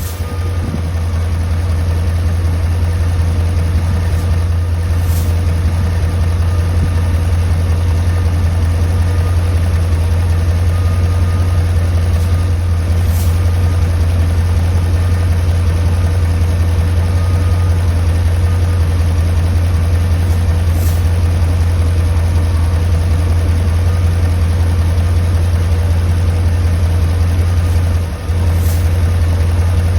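A 1993 Chevrolet Corvette's V8 engine idling steadily.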